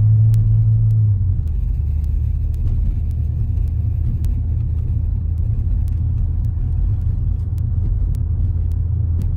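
Steady low rumble of a car's engine and tyres heard from inside the cabin while driving along a road, easing slightly about a second in.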